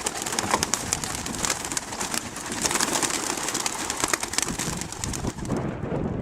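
A flock of white pigeons taking off at release: a dense, rapid clatter of flapping wings that thins out near the end.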